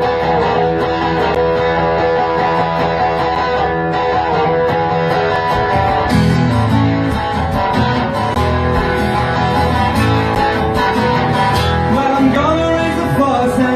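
Live band of electric guitar and strummed acoustic guitar playing together, an instrumental stretch without singing. The low notes grow fuller about six seconds in.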